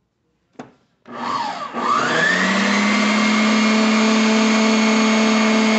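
A click, then a stand mixer's motor starts about a second in, its whine rising as it speeds up and then running steadily as the wire whisk beats a thick homemade soap-and-detergent polishing paste to cool it.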